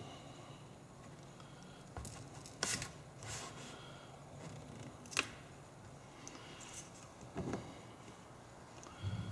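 A handful of short clicks and scrapes from plastic pry tools (guitar picks and a spudger) working along the edge of a cracked iPad 2 digitizer glass as it is lifted off its heat-softened adhesive.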